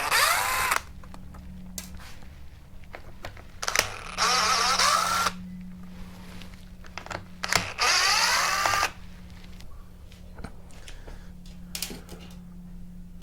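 Cordless drill-driver with a Torx T20 bit running in three short bursts of about a second each, the motor winding up in pitch each time, backing out screws from the trimmer's housing. Light clicks and knocks of handling the parts come between the bursts.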